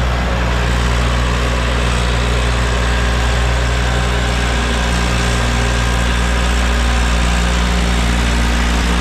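Eicher tractor's diesel engine running steadily at an even speed, with a constant low hum and no revving.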